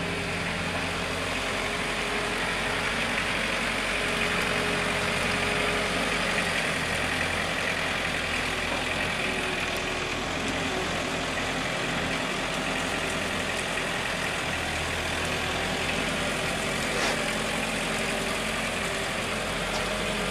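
Combilift four-way forklift's engine running steadily as the truck travels with a long load.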